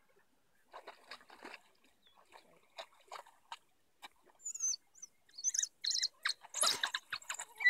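African wild dogs twittering: high-pitched, bird-like chirping calls, a few faint ones at first, then growing louder and busier over the last few seconds.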